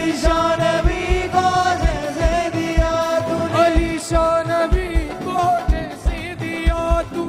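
Live Hindi Christian worship song: singers over electronic keyboard with a steady beat.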